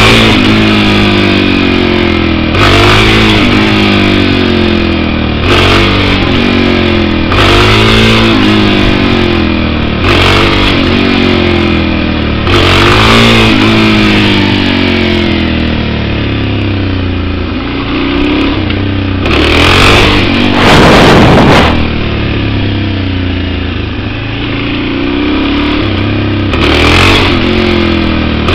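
Suzuki DR-Z400E's single-cylinder four-stroke engine revving up sharply and falling away again about eight times, as the rider blips the throttle for small wheelies. The loudest rev is about two-thirds of the way in.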